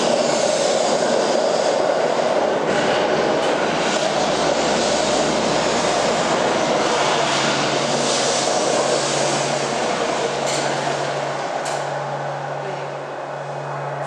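Steady rumble and hiss of a vehicle in motion, with a low hum that pulses on and off several times in the second half.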